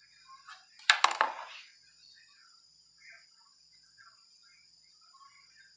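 Foamy white slime crackling and squishing as a hand presses into it: a burst of sharp crackles about a second in, then faint scattered little pops, over a thin steady high hiss.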